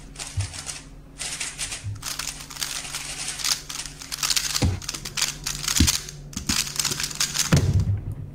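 Speedcube being turned very fast through a timed 3x3 solve: a dense rattle of small plastic clicks for about six seconds, with a few knocks, ending in a thump near the end as the solve is stopped on the timer.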